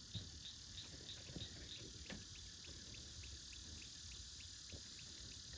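Cricket chirping at an even pace, about four short chirps a second, against a faint high hiss of other insects. A few faint knocks are heard.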